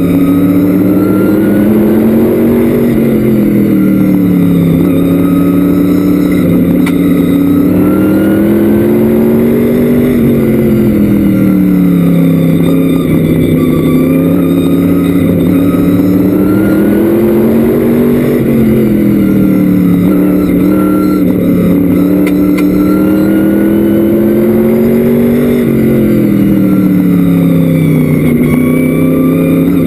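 Vintage modified race car's engine heard from inside the open cockpit, running hard at race speed. Its pitch climbs along each straightaway and drops back into each turn, a rise and fall about every seven or eight seconds, four times.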